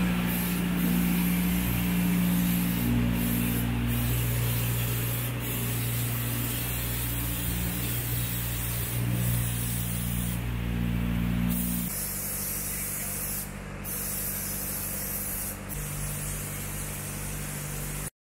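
Steady hiss of a paint spray gun applying anti-corrosion coating to steel, over a machine's steady low hum that drops in pitch about twelve seconds in. It all cuts off suddenly just before the end.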